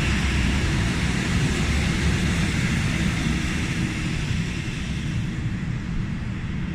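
Freight train of tank wagons rolling past on the rails: a steady rumble of wheels on track that slowly fades as the last wagon goes by and the train moves away.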